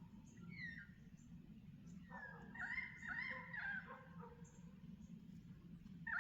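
Distant dog whining and yelping in a run of rising-and-falling cries, starting about two seconds in and again near the end, with small birds chirping faintly in between.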